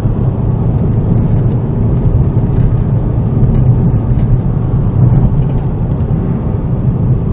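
Steady low drone of a car driving at road speed, heard from inside the cabin: engine and tyre noise on the road.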